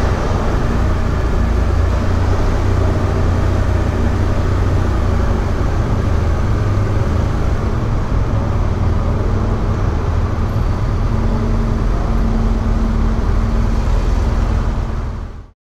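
Motorcycle engine running steadily, a low rumble with no revving, cutting off abruptly near the end.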